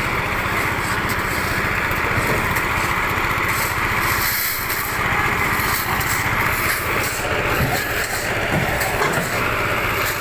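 Small engine of a site concrete mixer running steadily, with a rapid, even beat.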